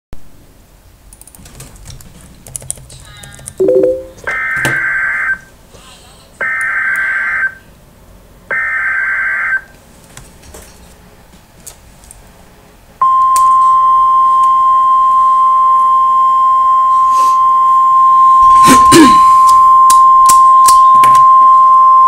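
Emergency Alert System data header: three harsh, buzzy one-second bursts of digital tones about a second apart, followed about 13 seconds in by the steady single-pitch weather-radio attention tone near 1050 Hz. Scattered clicks and a short burst of noise sound over the tone.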